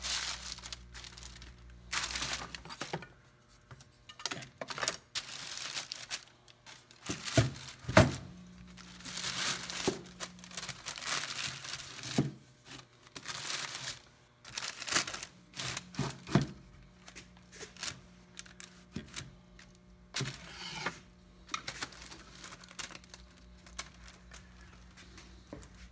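Plastic sheeting crinkling and rustling as it is spread and smoothed out by hand on a wooden workbench, with a few sharp knocks of wood on the bench, the loudest about eight seconds in.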